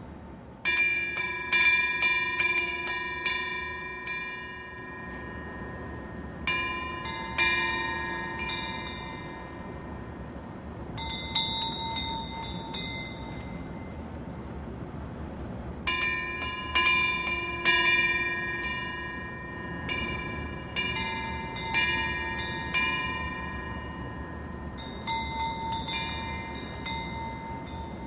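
Korean temple wind bells (pungyeong) hanging from the eaves, swung by the wind. They ring in about six bursts of several quick strokes each, every stroke clear and metallic and dying away slowly, over a steady low background noise.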